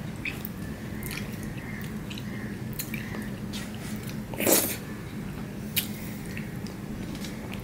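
Fingers scraping and squishing wet green food around a steel plate, with small wet clicks and mouth sounds of eating. One louder noise comes about four and a half seconds in, and a sharp click a little over a second later. A steady low hum runs underneath.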